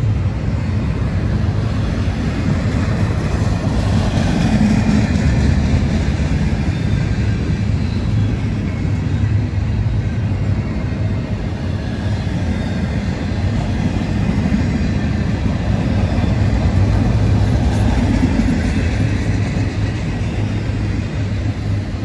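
Double-stack container well cars of a CSX intermodal freight train rolling past, a steady rumble of steel wheels on rail.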